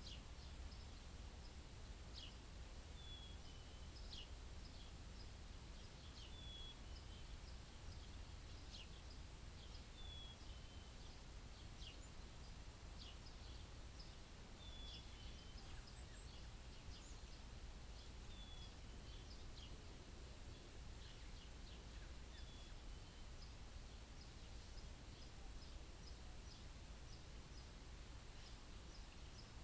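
Quiet outdoor ambience: short, high chirps of birds calling every few seconds over a low, steady rumble.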